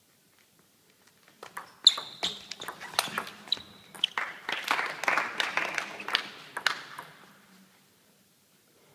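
Table tennis rally: the ball clicking sharply off bats and table in quick succession, starting about a second and a half in and stopping about a second before the end.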